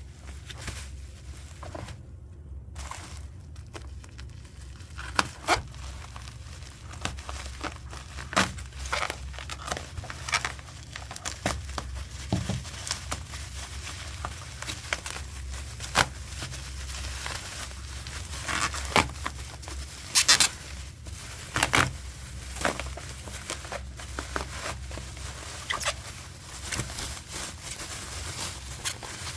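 Packaging of a mechanical keyboard being handled and opened: plastic wrap and paper crinkling and tearing, with irregular clicks and taps of a cardboard box. A low steady hum sits underneath.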